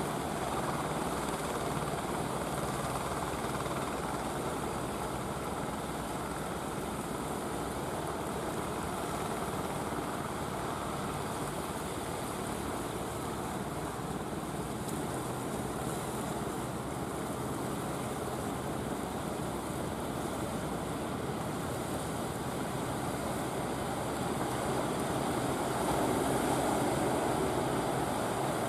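A motorised fishing boat's engine running steadily under way, mixed with the wash of water. The sound grows a little louder near the end as the boat draws closer.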